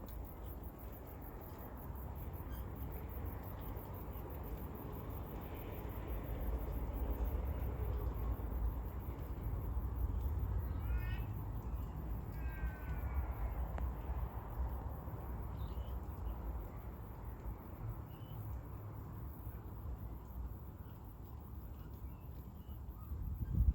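Outdoor suburban ambience: a steady low rumble, with a few scattered bird calls, including short runs of quick notes around the middle.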